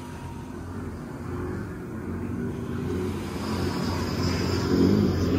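Distant race boat engines droning and growing steadily louder as the boat approaches, over waves washing up the beach.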